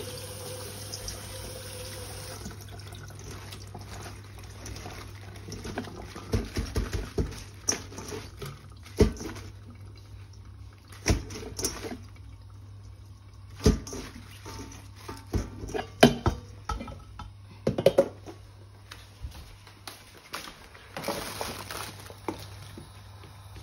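Kitchen tap running onto cabbage leaves in a stainless-steel colander, stopping about two seconds in. Then the leaves and the metal colander are handled, with scattered knocks and clatters and a short splashing rush near the end, over a steady low hum.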